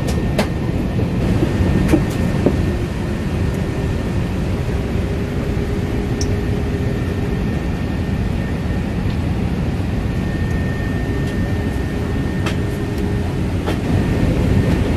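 Cabin noise of an Airbus A380 taxiing: a steady low rumble from the Rolls-Royce Trent 900 engines at idle and the rolling airframe, with a few brief knocks.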